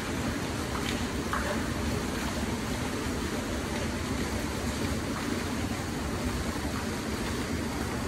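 Steady rushing splash of water from an outdoor wall fountain.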